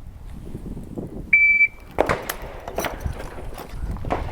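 Electronic shot timer giving its single high start beep, about half a second long, a second or so after the stand-by call. Sharp knocks and clicks follow from about two seconds in.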